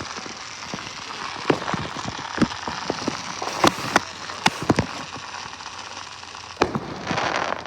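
Fireworks popping and crackling: a continuous crackle with about a dozen sharp bangs scattered through it, and a louder hissing rush near the end.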